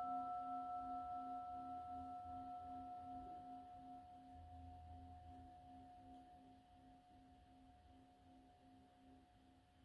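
A single struck bell tone, singing-bowl-like, ringing out and slowly fading, its low note pulsing steadily; the higher overtones die away about four seconds in.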